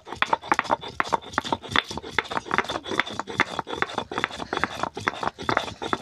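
Stone muller of a shil-nora (sil-batta) grinding stone being scraped back and forth over the flat stone slab, with quick, regular gritty strokes, several a second, as whole garam masala spices are ground into a paste.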